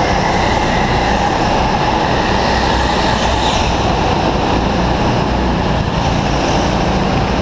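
Steady, loud rumble and hum of go-karts at an indoor karting track.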